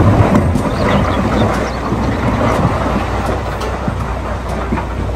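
A wheel loader's bucket tipping a load of dark earth into a dump truck's bed: a rush of falling material, loudest at the start, over the steady running of the heavy diesel machinery.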